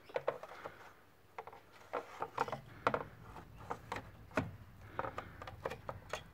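Car engine control unit (ECU) being slid back into its mount by hand: irregular clicks, knocks and rubbing.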